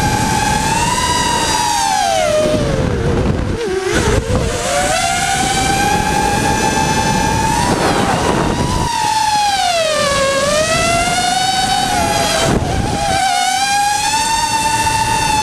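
Small drone's electric motors and propellers, heard from the drone itself, whining steadily; the pitch drops sharply about three to four seconds in and again about ten seconds in as the throttle is eased, then climbs back.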